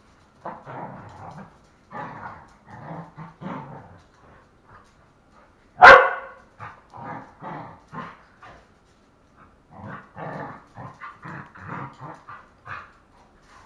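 Two dogs play-fighting, giving short rough barks in quick clusters, with one loud sharp bark about six seconds in.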